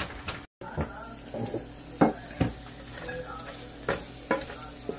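Wooden spoon stirring and scraping mustard greens as they fry in an open pan, over a steady sizzle, with several sharp knocks of the spoon against the pan.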